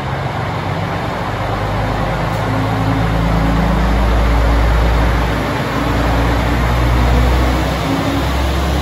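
KiHa 120 single-car diesel railcar moving past close by: a steady low diesel engine drone with wheel and rail noise, growing louder through the first half as it draws level.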